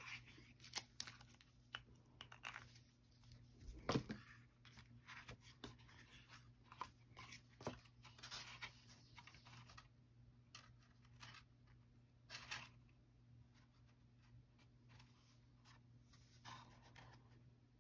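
Faint handling of cardstock pieces while gluing them with liquid glue: small paper rustles and light taps scattered throughout, with one firmer knock on the desk about four seconds in.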